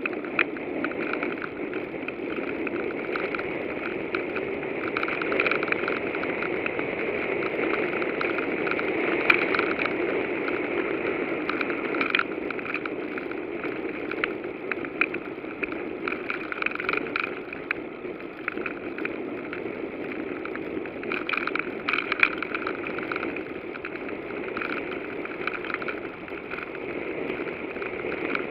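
Bicycle on the move: steady rolling noise of the tyres, with constant light rattling and crackling clicks throughout.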